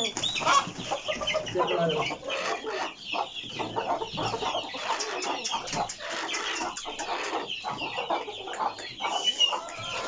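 Chickens clucking in a pen: many short, overlapping clucks and squawks throughout.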